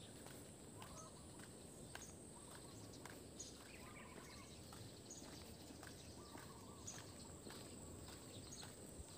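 Very quiet outdoor ambience: faint footsteps on a paved road about once a second, a few soft bird chirps, and a steady high hiss.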